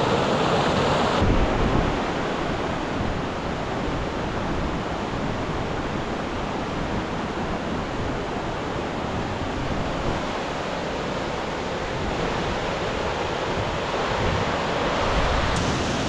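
Steady rush of a fast mountain stream running over rocks. About a second in, the sound turns duller and loses its hiss, then carries on as an even rush of water.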